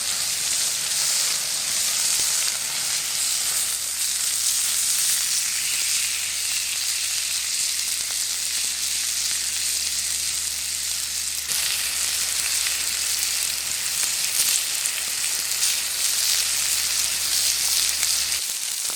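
A breakfast of sausage, black pudding, haggis, mushrooms and potato rosti sizzling on a slab of slate heated over a wood fire: a steady, high frying hiss.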